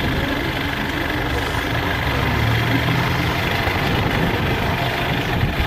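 Trial truck engine running as the truck crawls slowly through a muddy pit, a steady low drone that grows stronger about two seconds in.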